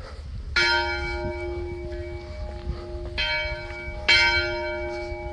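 Church bell struck three times, the second and third strikes close together, each ringing on and slowly fading.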